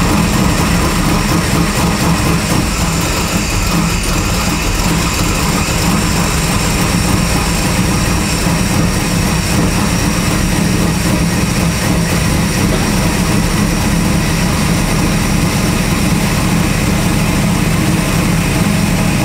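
1991 Chevrolet Camaro engine idling steadily, running on a newly installed alternator.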